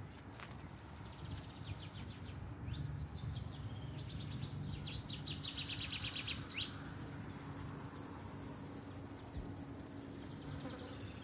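Faint courtyard-garden ambience: a few short high chirps, then a rapid chirping trill from about four seconds in, lasting nearly three seconds, over a low steady hum.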